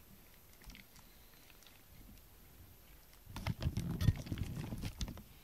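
Faint strokes of a rubber grooming brush through a cat's fur. About three seconds in comes a loud stretch of rustling and knocking close to the microphone, lasting under two seconds, as the cat's body and the brushing hand rub against the camera.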